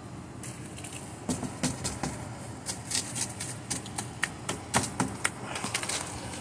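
Burning cardboard box crackling, with irregular sharp cracks and pops coming several times a second from about half a second in. A steady low hum runs underneath.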